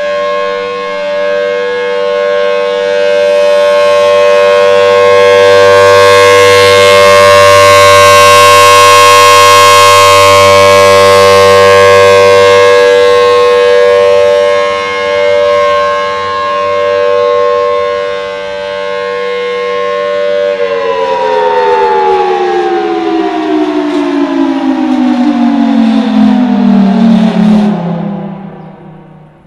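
Federal Signal Thunderbolt 1000T outdoor warning siren sounding a steady alert tone, swelling and fading in loudness as its head rotates. About two-thirds of the way through it winds down, its pitch falling steadily until it dies away at the end.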